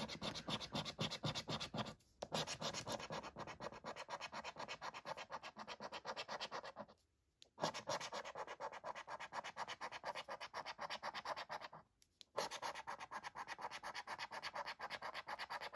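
Scratching the silver latex coating off a lottery scratchcard: quick, even back-and-forth strokes, several a second. The scratching stops briefly about two seconds in, around seven seconds and around twelve seconds.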